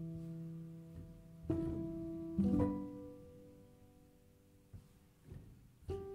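Background music of slow, sparse plucked-string notes. Each note rings out and fades before the next, with new notes about a second and a half in, just after two seconds in, and near the end.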